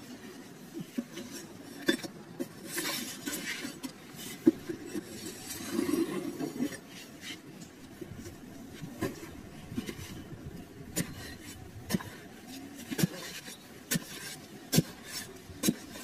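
Handling sounds of a wire fan guard being settled on a car tyre: light metal clinks and rubbing with scattered clicks. In the second half come sharp knocks about a second apart as a blade chops into hard, dry soil.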